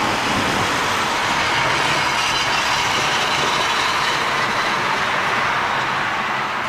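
Heavy thunderstorm rain pouring down: a loud, steady hiss that does not rise or fall.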